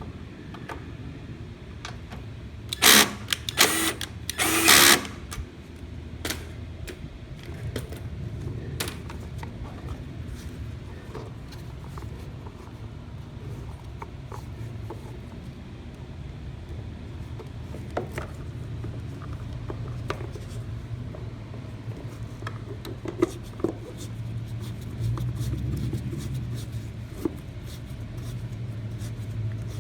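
Kohler 149cc single-cylinder engine on a walk-behind Lawn-Boy mower, running steadily, with two loud clatters about three and five seconds in.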